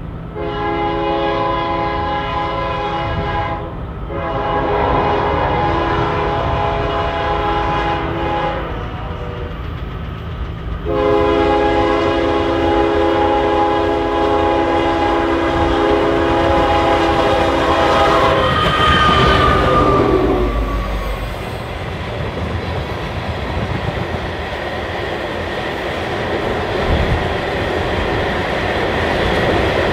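A GE ES44AC diesel locomotive sounds its air horn in three blasts for the crossing, the last held about seven seconds. The horn's pitch drops as the locomotive passes. Then loaded gravel cars roll by with a steady rumble and clickety-clack of wheels over rail joints.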